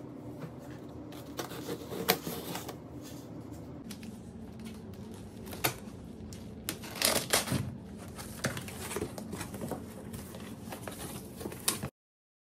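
Cardboard shipping box being opened by hand: a knife slitting the packing tape, and the cardboard scraping, rustling and knocking as the flaps are pulled back, with several sharp taps. The sound stops abruptly just before the end.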